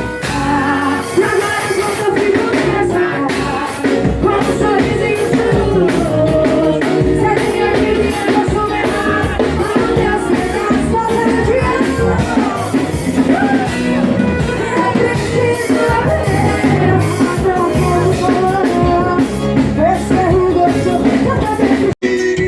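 Live band music: a melodic lead over drums and bass with a steady beat. The sound cuts out for an instant near the end.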